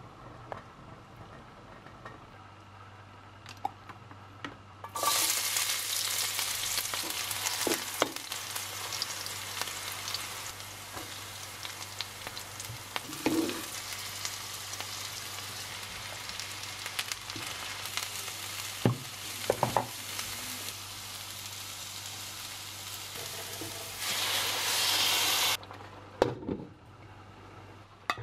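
Onions, green chillies and potato pieces sizzling in hot oil in a wok, a steady frying hiss with a few sharp knocks now and then. The sizzling starts suddenly about five seconds in, swells near the end and cuts off shortly before the end.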